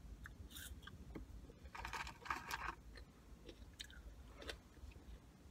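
Faint close-up chewing of fast food, with a cluster of short mouth clicks about two seconds in and a few more near the end.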